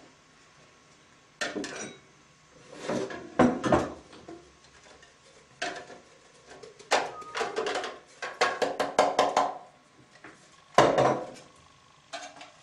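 Juicer pulp containers and clear bowls clattering and knocking on a countertop while apple pulp is tipped and tapped out into bowls on scales. There are several separate bursts of knocks, with a quick run of taps in the middle.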